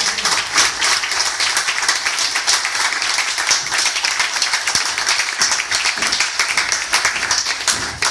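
A roomful of people applauding, many hands clapping steadily together.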